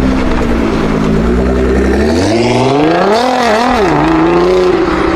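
Straight-piped Nissan GT-R R35's twin-turbo V6 running at low revs, then revving up about two seconds in, with a couple of quick dips and rises, before holding at higher revs.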